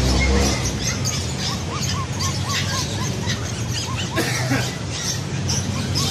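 Pet-shop animal noise: a quick run of short squeaky cries, each rising and falling, starting about a second in. Many high chirps go on throughout over a steady low hum.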